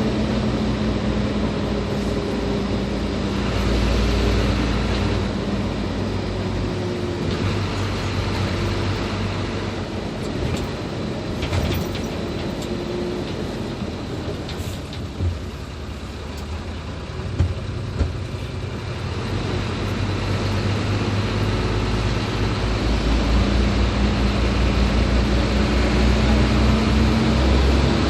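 Hino 500 truck's diesel engine running while driving, easing off through the middle and building up again near the end, with a few short knocks about halfway through.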